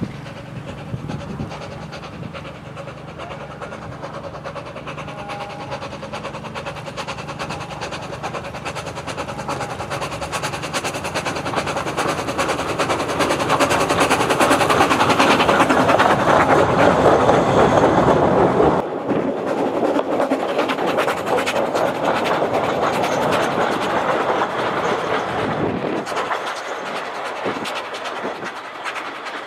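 Narrow-gauge steam locomotive Sir Haydn running along the track with its works train, growing louder as it draws near and passes close by. About two-thirds of the way through the sound changes suddenly to the train running on and away.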